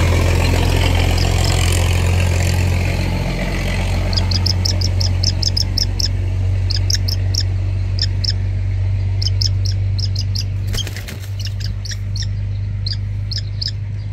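A young hawk gives a rapid series of short, high-pitched calls, several a second, starting about four seconds in, protesting at a hand reaching to touch it. A steady low engine hum runs underneath.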